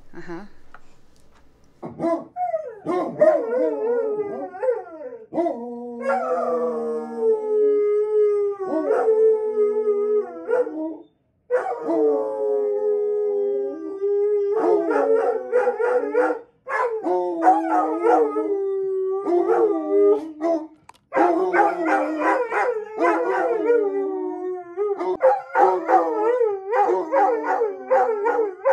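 A dog howling: long, wavering howls, with quicker, choppier yipping howls in the second half.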